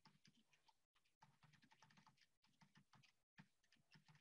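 Faint typing on a computer keyboard: quick, irregular key clicks, with the audio cutting out to silence a few times.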